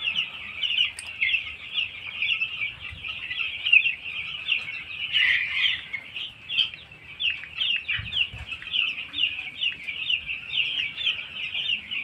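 A flock of nine-day-old broiler chicks peeping, many short high cheeps overlapping without a break.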